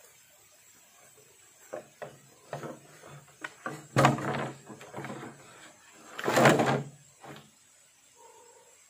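A series of hollow knocks and scrapes from bamboo being handled, with two louder knocks about four seconds in and a longer scrape-like knock just over six seconds in.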